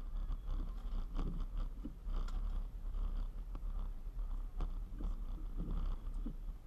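A car driving, heard from inside the cabin: a steady low road rumble with irregular light ticks and taps scattered through it.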